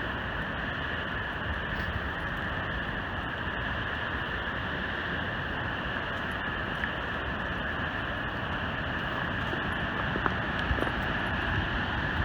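Steady rushing roar of a large waterfall, the Great Falls of the Passaic River, heard as an even unbroken noise.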